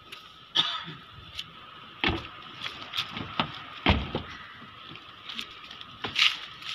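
Car doors of an SUV being handled: a few light knocks and clicks, and a door slammed shut about four seconds in, the loudest thump.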